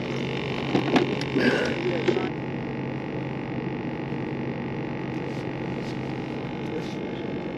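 A motor or pump on the boat humming steadily at one pitch, with a few knocks and rustles of handling gear in the first two seconds.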